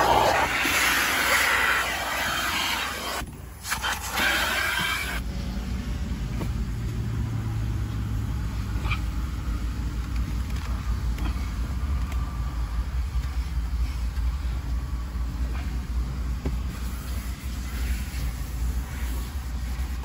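Car wash vacuum hose nozzle sucking air inside a car with a loud hiss, dropping out briefly about three seconds in and stopping about five seconds in. After that only a steady low rumble remains.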